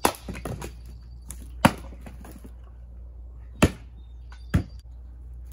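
An axe splitting firewood at a chopping block: a sharp crack of the axe biting into wood right at the start, then three more sharp wooden cracks spread over the next few seconds, with lighter knocks of split pieces in between.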